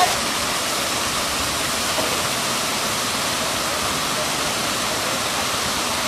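Waterfall with several streams falling over rock ledges into a pool, a steady splashing rush of water.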